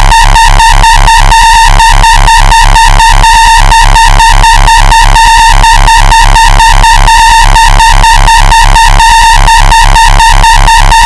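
Extremely loud, distorted electronic music: a harsh buzzing tone pulsing rapidly and evenly over a heavy bass, pushed to full volume.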